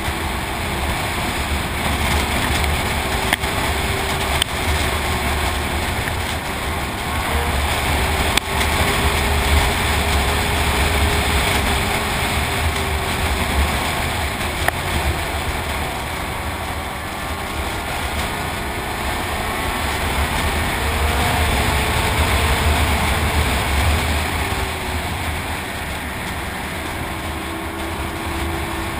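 Snowmobile running along at speed, its engine note wavering up and down a little over a steady low rumble and rushing noise, with a few small knocks from bumps in the trail.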